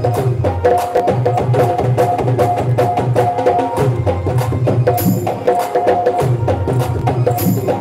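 Instrumental bhajan music: a steady melody line over fast, dense percussion with wood-block-like clicks, and two brighter, hissy hits near the end.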